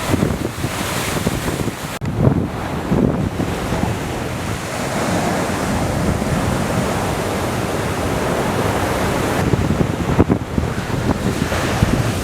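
Sea waves breaking and surging on the shore, with wind buffeting the microphone.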